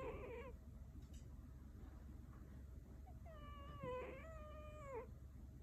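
Scottish Fold cat snoring in its sleep, each breath carrying a high whistling tone: one dies away just after the start, and a longer one of about two seconds in the middle falls off at its end.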